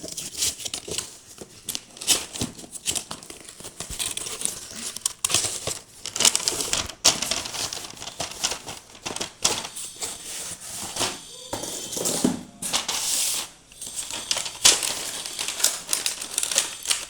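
Packaging being opened by hand: irregular crinkling, tearing and rustling with scattered small clicks and knocks.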